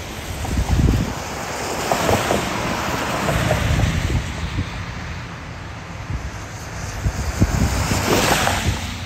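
Gusty wind buffeting the microphone, over the hiss of tyres on a wet road that swells twice, about two seconds in and again near the end.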